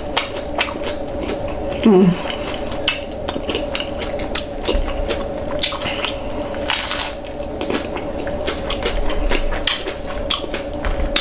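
Close-miked chewing and crunching of hard-shell tacos: a dense run of irregular crisp crunches and clicks, with a short vocal sound about two seconds in and a steady faint hum underneath.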